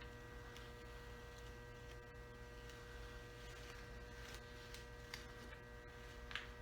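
Steady electrical hum made of several fixed tones, with a few faint, short ticks late on.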